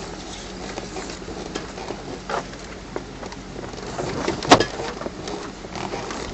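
Land Rover driving over a rough woodland track, heard from inside the cab: a steady low engine drone under the rattling and knocking of the body and fittings, with one loud bang about four and a half seconds in.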